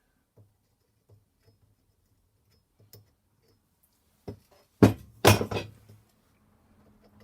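Steel trolley parts being handled on the bench: a few faint taps, then two loud metallic clanks about half a second apart near the five-second mark, ringing briefly.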